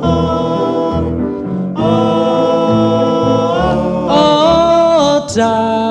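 Slow 1950s doo-wop song: a vocal group holds long sustained harmony notes without words, the chord changing twice.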